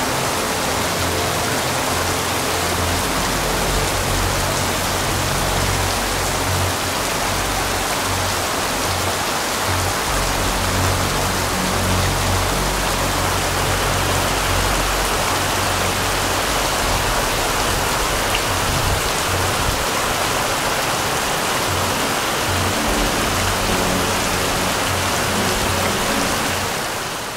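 Heavy hurricane downpour falling steadily onto flooded ground and standing water, a dense even hiss of rain, fading out near the end.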